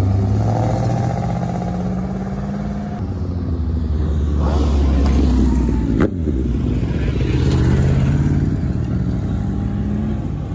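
Car engines pulling away one after another: a classic pickup truck's engine, then a Porsche 911 GT3 pulling out and accelerating, its engine note rising. A single sharp pop about six seconds in.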